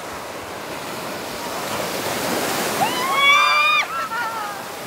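Surf washing on the beach, the noise swelling about two seconds in. About three seconds in a high-pitched voice calls out, held for about a second and cut off sharply, with fainter voices after it.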